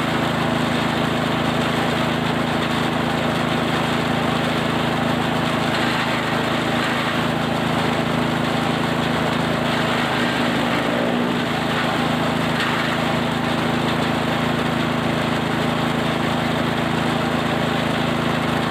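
Small engine-driven forage chopper running steadily while grinding cattle feed, with a brief wobble in pitch about ten seconds in.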